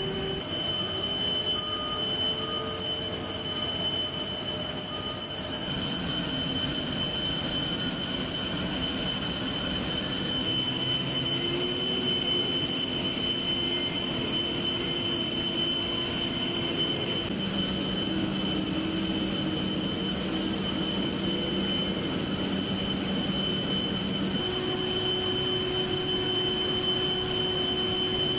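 Steady jet turbine whine on an airport ramp: several high-pitched tones held over a constant rumble, with lower machinery notes that drift and change through the middle.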